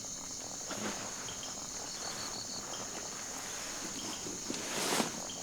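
Evening chorus of crickets and other insects: a steady high-pitched drone, with short runs of rapid chirps, one about two seconds in. A brief rustle near the end.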